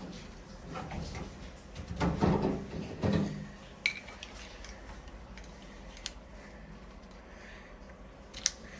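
Small hard parts of a washing machine water inlet valve being handled during disassembly. There is a burst of knocking and clatter about two seconds in, then a few separate sharp clicks.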